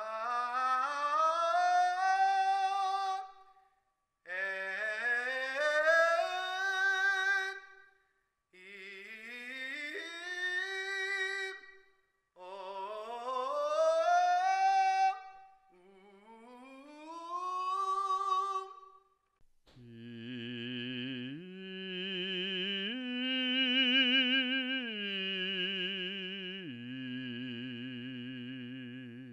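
A tenor sings five separate phrases, each sliding up in pitch over a couple of seconds and ending on a held note, with short silences between them. Then, about 20 seconds in, a bass holds a low sung note with vibrato, steps up to a higher note and later drops back down to the low one.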